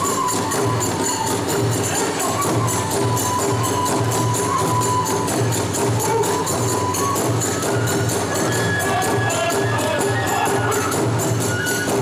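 Iwami kagura accompaniment: a drum beating a steady, driving rhythm under rapid clashing of small hand cymbals, with a bamboo flute melody that climbs higher near the end.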